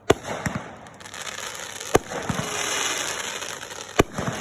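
Fireworks going off: three sharp bangs about two seconds apart, with a crackling hiss between them.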